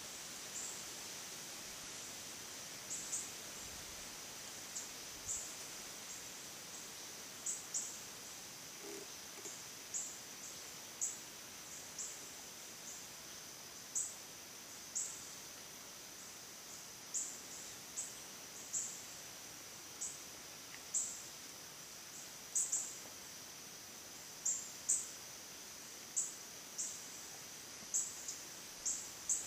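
Evening woodland ambience: a steady high-pitched insect drone, with short, sharp high chirps repeating irregularly about once a second.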